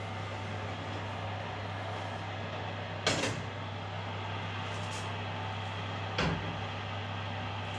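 An oven dish in a water bath is lifted out of the oven, with a sharp knock about three seconds in as it comes off the shelf and a second knock about six seconds in as it is set down on the gas hob's grate. A steady low hum underlies it.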